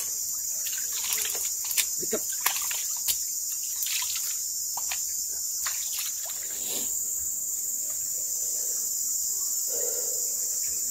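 Steady, high-pitched chorus of forest insects droning without a break. Scattered sharp clicks and rustles come in the first several seconds.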